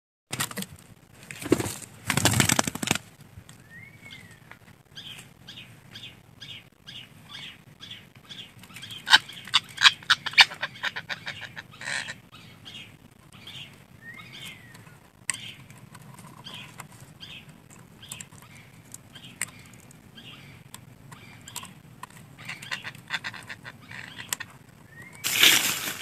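Parakeets calling in a series of short, repeated calls about two a second, with an occasional rising-and-falling chirp. A few loud bursts of rustling come near the start, in the middle and at the end.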